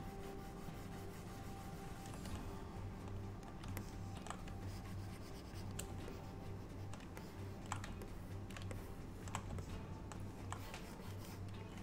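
Scattered clicks and taps of a computer keyboard and pen input, over a steady low hum.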